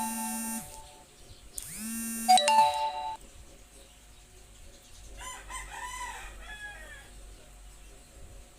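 Mobile phone ringing with an incoming call: the vibration motor buzzes in two pulses about a second long, each with a chime of ringtone notes, stopping about three seconds in. A fainter wavering call follows from about five to seven seconds in.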